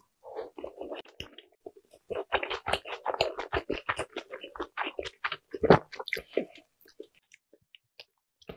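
Close-miked chewing of a mouthful of large dumpling: a dense run of wet mouth clicks and smacks that thins out to a few soft clicks near the end.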